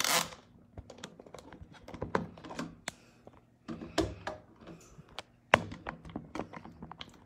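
Handling noise on a phone's microphone: a string of knocks, taps and rubs as the phone is picked up and moved around, with a loud bump at the very start and another sharp knock about five and a half seconds in.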